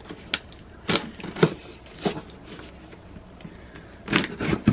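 Kitchen knife stabbing into and slicing the tape and cardboard of a sealed shipping box: several short sharp cuts in the first two seconds, a quieter pause, then a quick run of cuts and rustles near the end.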